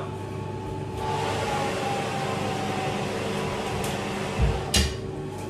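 Convection oven fan noise swelling as the oven door is opened, a steady whoosh with a faint held tone. Near the end come two heavy thumps with a sharp metal clunk as the tray is pulled out and the oven door shuts, and the fan noise drops back.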